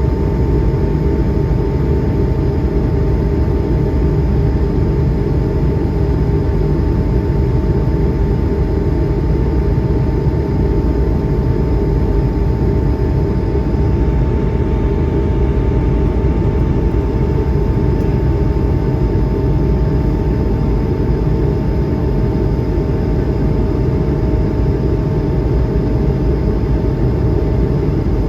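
Steady cabin noise inside an Airbus A220-100 with its Pratt & Whitney PW1500G geared turbofans running: a loud, even rumble with a steady hum of engine tones over it.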